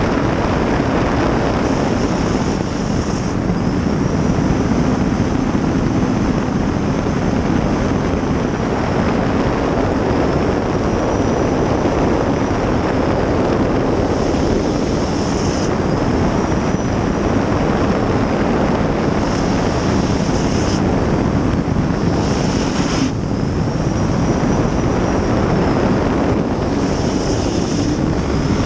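A 23-foot river-racing jet boat's 2000-plus-horsepower gas turbine running at speed: a loud, steady roar with a high whine that rises and falls.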